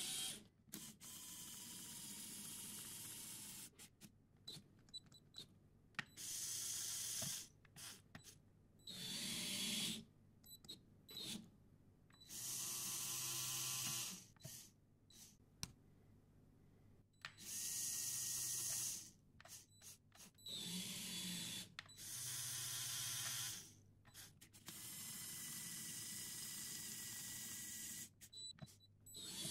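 Small electric motors and plastic gear trains of a remote-controlled Lego Technic car with an expanding chassis whirring in repeated bursts of one to four seconds, some rising or falling in pitch as they spin up and down. Short gaps between the bursts hold scattered clicks.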